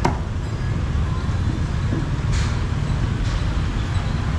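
Busy street-market background: a steady low rumble of passing traffic, with a sharp click right at the start and a brief hiss about halfway through.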